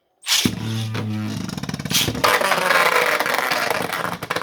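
Two 3D-printed Beyblade spinning tops launched into a plastic stadium, starting suddenly with a steady whirring hum, then rattling, scraping and clicking as they spin and collide.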